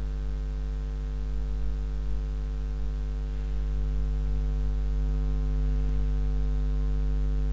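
Steady electrical mains hum, a low buzzing drone with its overtones, picked up by the recording's microphone chain.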